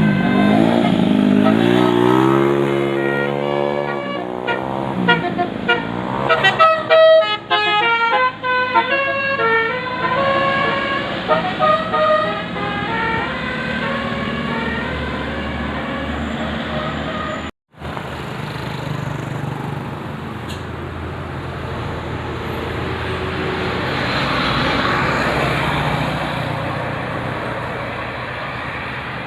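A bus's multi-tone telolet basuri horn playing a tune in quick stepped notes, with a downward-gliding run early on. After an abrupt cut about two-thirds of the way through, only steady vehicle engine and road noise remains, swelling briefly near the end.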